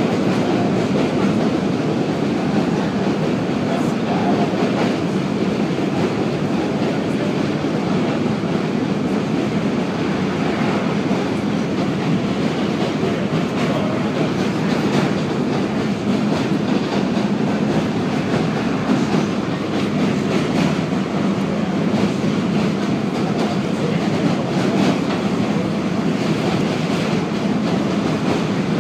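R32 subway train running at steady speed, heard from inside the car: continuous wheel-on-rail running noise with scattered clatter over the rail joints.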